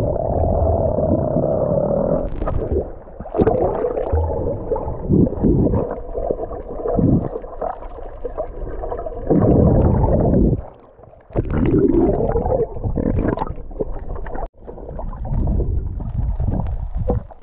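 Muffled underwater rumbling and gurgling of seawater moving around a submerged GoPro Hero 8 as a swimmer kicks along. The sound surges unevenly and dips briefly about eleven seconds in.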